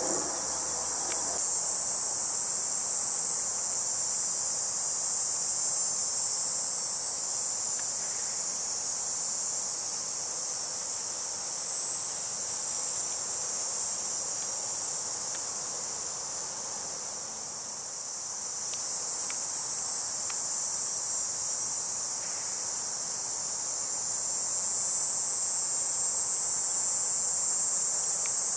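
Steady, high-pitched insect chorus of late-summer crickets or cicadas buzzing without a break, swelling and easing slightly in loudness.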